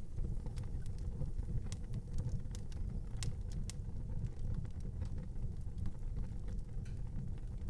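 Fire burning in an outdoor fireplace: a steady low rumble of flames with scattered sharp crackles and pops, a few louder snaps a little past the middle.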